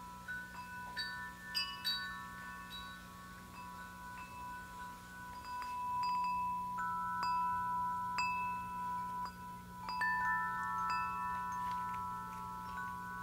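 Wind chimes ringing in an irregular pattern: a handful of notes struck at random moments, each ringing on and overlapping the others, with no steady beat.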